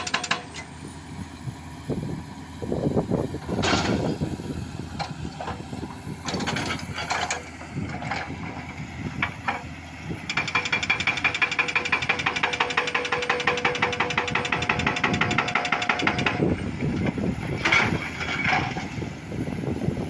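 Excavator-mounted hydraulic breaker hammering rock in a fast, even run of blows that stops just after the start. Irregular knocks and clatter follow over the running engine, then the breaker fires again about ten seconds in and stops about six seconds later.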